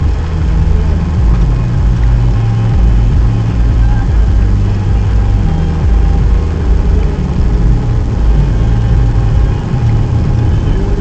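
Steady low rumble of a car's engine and tyres, heard from inside the cabin while driving on a snowy road.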